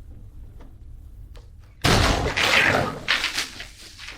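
A sudden loud crash about two seconds in, after a few faint clicks, followed by a noisy, clattering tail that dies away over about a second and a half: a collision in which a drink gets spilled.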